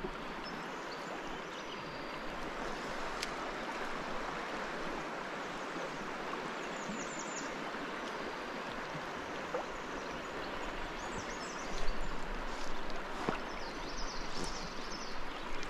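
Steady rush of a river riffle flowing over stones. From about twelve seconds in, low bumps and rumbles come in under it.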